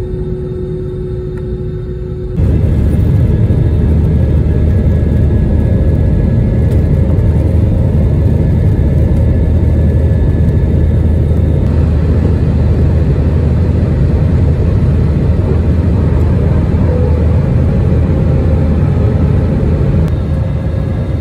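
Jet airliner's engines at takeoff power heard from inside the cabin, a steady roar with deep rumble through the takeoff roll and climb-out. It jumps up sharply about two seconds in and eases a little near the end.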